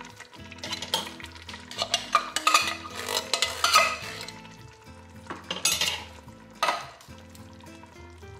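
Metal spoon scraping and clanking inside a tin can as canned black beans and their liquid are emptied into a hot stainless stockpot, with a light sizzle from the pot. The scraping comes in repeated strokes through the first four seconds and again a little past the middle.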